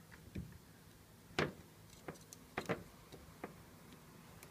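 A handful of small, irregular clicks and light knocks, the sharpest about a second and a half in and a quick pair past the halfway point, from multimeter test probes wrapped in copper foil being pressed and shifted on a plastic film sheet on a desk.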